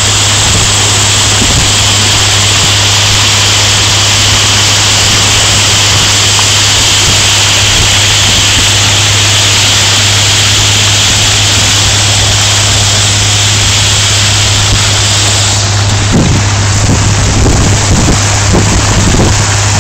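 Slow boat's inboard engine running steadily with a constant low hum, under the rush of water along the hull. From about 16 seconds in, gusts of wind buffet the microphone.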